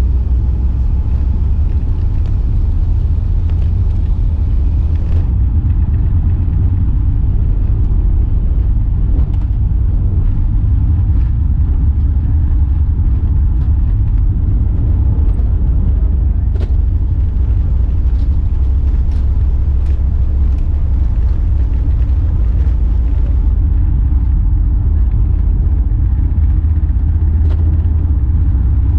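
Airbus A380's four jet engines giving a steady, deep rumble during a takeoff, with a few faint clicks.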